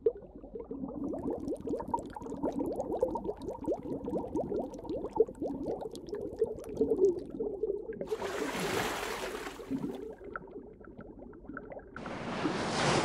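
Underwater bubbling and gurgling, a dense run of small pops, with a rush of water noise about eight seconds in and again near the end.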